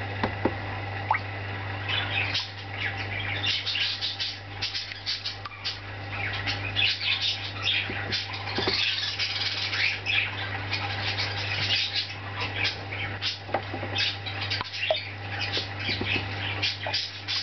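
Small birds chirping and squawking almost without pause, over a steady low hum.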